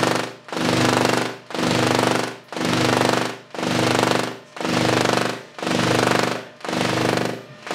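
Handheld Tesla coil (Tesla gun) firing spark streamers into the air with a loud pitched buzz. It comes in bursts about once a second, each nearly a second long with a short break between.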